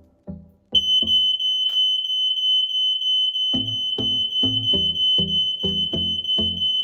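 Smoke alarm sounding: it starts about a second in and holds one continuous high-pitched tone, the sign that it has sensed the test smoke and tripped.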